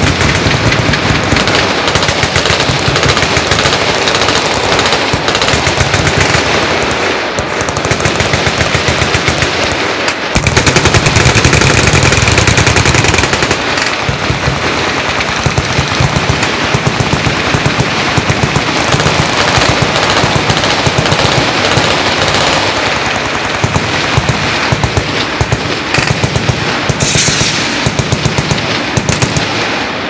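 Many machine guns firing full-auto at once in a continuous, overlapping barrage, swelling louder about ten seconds in.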